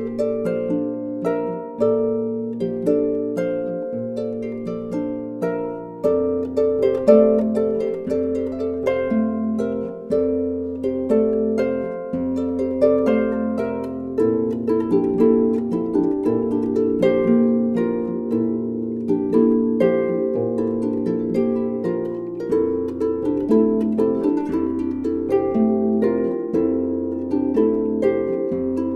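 Background music: a quick, continuous run of plucked-string notes over held low bass notes that change every couple of seconds.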